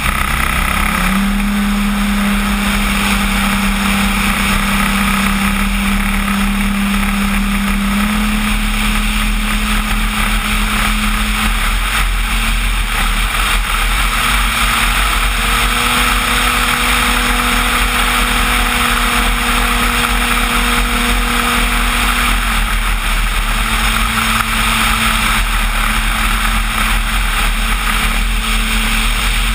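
Propeller and motor of a radio-controlled Cessna 185 floatplane model in flight, heard up close from its cowling: a steady buzzing propeller tone over rushing air. The pitch steps up about a second in and twice more as the throttle is opened, then drops back a little after twenty seconds.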